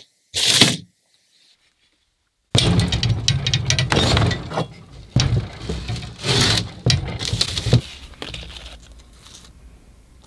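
A paper template is slid briefly over a wooden workbench. After a pause, a rusty leaf-spring pack scrapes and shifts on the bench in a run of rough, irregular rubbing strokes that die down near the end.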